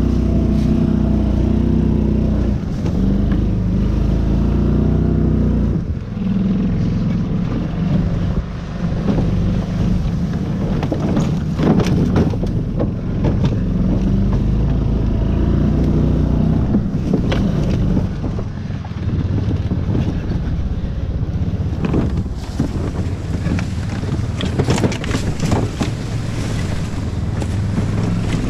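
Golf cart's small engine running under load, its pitch rising and falling with the throttle as the cart drives over rough leaf-covered ground, with frequent knocks and rattles from the bumps.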